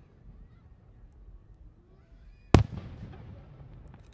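A firework going off: one sharp bang a little after halfway through, its rumble dying away over about a second.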